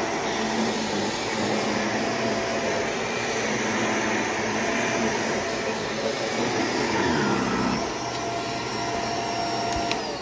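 Bagless upright vacuum cleaner running steadily over carpet, its motor note dipping briefly about three-quarters of the way through. At the very end it cuts off and the motor starts to wind down.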